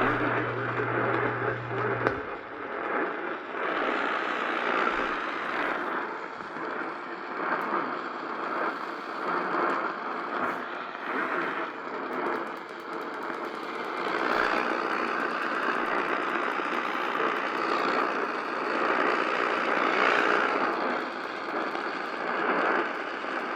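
AM radio reception heavy with static: an uneven, fluctuating hiss with no clear alert tone or intelligible voice. A low hum cuts off about two seconds in.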